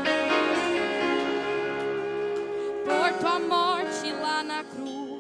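Introduction of a slow worship song: held chords with a wavering melody line that enters about three seconds in.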